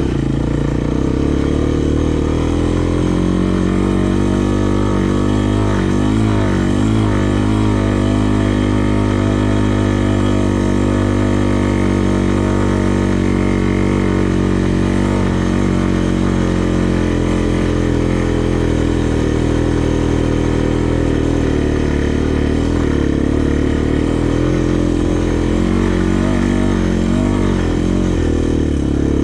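Sport quad's single-cylinder four-stroke engine running at low speed, close and steady, its pitch wavering up and down briefly a few seconds in and again near the end.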